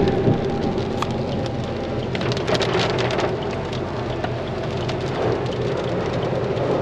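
Torrential rain beating on a moving car's roof and windscreen, heard from inside the cabin, with the car's road noise running low beneath it.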